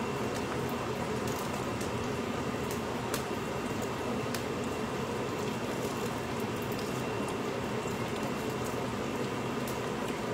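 Hot oil sizzling steadily in a pot as small dried snakeskin gourami deep-fry, with scattered sharp pops and crackles.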